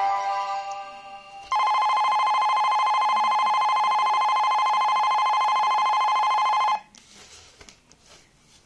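Railway alarm clock playing a station departure bell: a loud electric bell rings steadily with a rapid rattle for about five seconds, then cuts off suddenly. The last notes of a melody fade out just before the bell starts.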